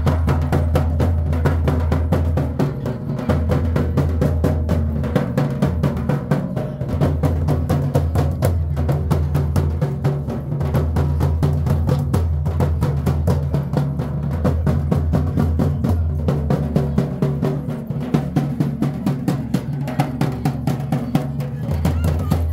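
Folk dance music driven by fast, dense drumming over a deep bass line.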